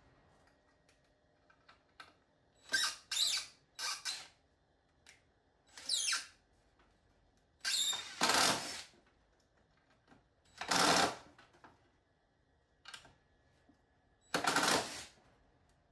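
Cordless drill driving screws into a wooden tool rack in about seven short bursts of a second or less, with pauses between them; in one burst the motor speed wavers up and down.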